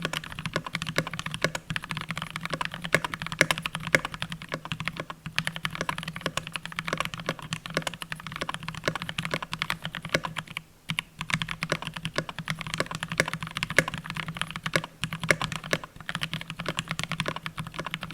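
Continuous rapid typing on a GMMK Pro mechanical keyboard fitted with lubed and filmed JWK Mauve linear switches, a dense run of key clacks with a brief pause about eleven seconds in.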